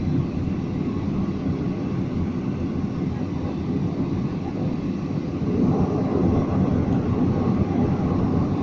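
Jet airliner's engines and rolling rumble heard inside the passenger cabin while on the ground before take-off, a steady low drone that grows louder about five and a half seconds in.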